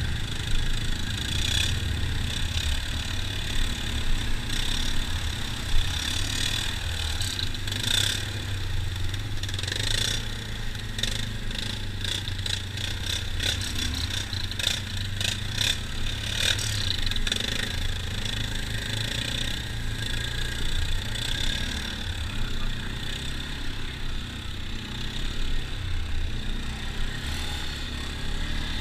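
Quad ATV engine running steadily at low speed, with a cluster of knocks and rattles over rough ground around the middle.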